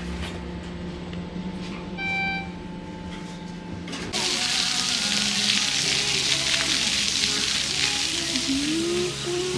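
A short electronic beep about two seconds in, then a loud steady hiss starts suddenly about four seconds in, with music under it.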